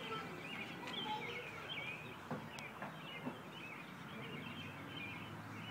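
Songbirds chirping: a busy run of quick, twittering calls over steady outdoor background noise, with a few short clicks about halfway through.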